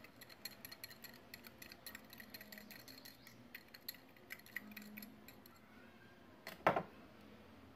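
A run of light, glassy clicks and ticks from a small glass bowl being tipped and tapped over a mixing bowl to empty out melted butter, then one louder knock about six and a half seconds in as a wire whisk comes down into the bowl.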